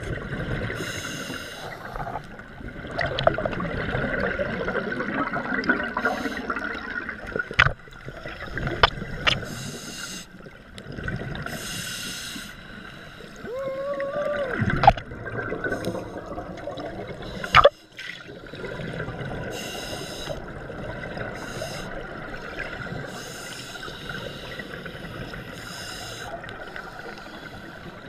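Scuba regulator breathing underwater: a hiss on each inhalation every few seconds and bubbling, gurgling exhalations. A few sharp knocks come through, and there is a brief pitched tone about halfway through.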